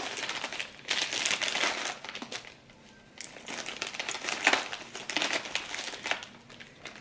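Plastic bags crinkling and rustling as they are handled, in irregular bursts with a brief lull partway through.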